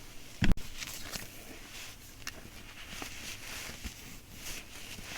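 Rustling of clothing as a swimsuit top is pulled on over clothes, with one sharp thump about half a second in.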